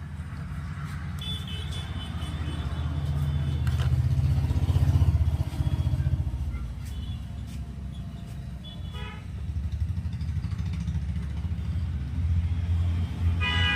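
Road traffic: vehicle engines rumbling steadily, louder for a moment about five seconds in, with horns honking several times and a longer honk at the end.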